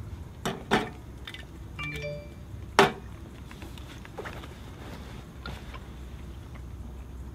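A few scattered knocks and clicks of small hard objects, the loudest about three seconds in, with a short ringing clink about two seconds in, over a low steady background hum.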